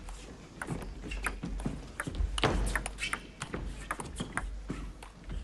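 Table tennis rally: the celluloid ball clicking off the rubber-covered bats and bouncing on the table in a quick, uneven series of sharp ticks.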